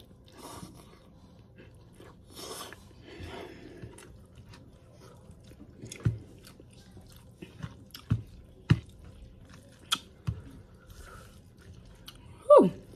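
Close-up mouth sounds of someone eating spicy noodles: soft breathy slurping and chewing, with several sharp wet clicks and smacks in the middle. Near the end comes the loudest sound, a brief vocal sound sliding down in pitch.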